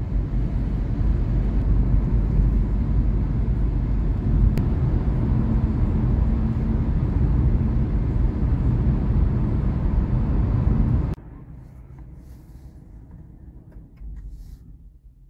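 Steady low rumble of road and engine noise inside a Citroën car's cabin while driving at about 55 mph. It cuts off suddenly about eleven seconds in, to the much quieter cabin of the parked car with its engine stopped.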